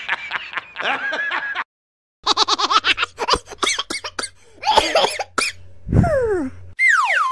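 Laughter sound effects: a man's laugh, then after a short gap a long run of rapid, pulsing ha-ha-ha laughter. Near the end come two quick falling whistle-like glides.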